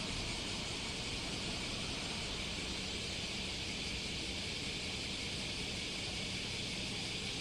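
Steady outdoor background noise: an even high hiss over a low rumble, with no bird calls.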